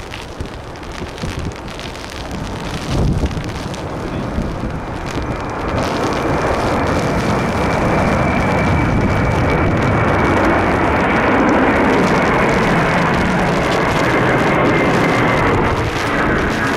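Airbus A330-200's two jet engines at go-around thrust as it climbs away overhead. The roar grows louder about six seconds in, with a steady high whine that slowly drops in pitch. Wind buffets the microphone early on.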